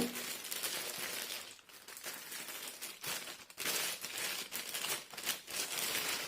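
Packaging crinkling and rustling in irregular stretches, with short lulls, as the headphones are unwrapped and lifted out of their box.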